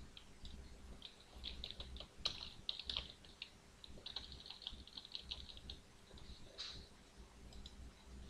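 Faint typing on a computer keyboard: runs of quick key clicks with short pauses, stopping shortly before the end.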